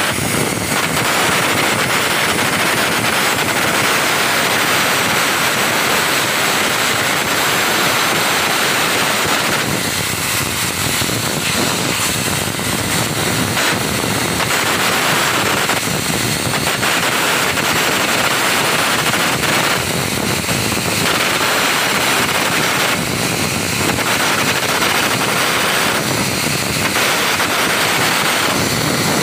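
Stick (shielded metal arc) welding: the electrode's arc crackling steadily on a vertical seam in steel plate, easing for a moment now and then.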